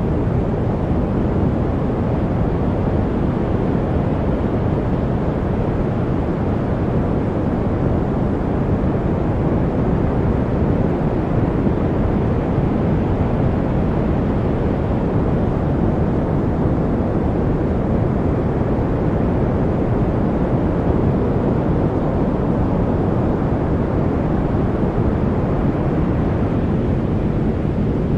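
Steady, unbroken noise track of the white-noise kind, weighted to the low end so it sounds like a deep, muffled hiss.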